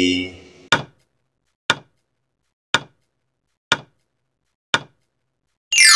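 Quiz countdown timer sound effect: five sharp ticks about a second apart, then a bright chime rings out near the end.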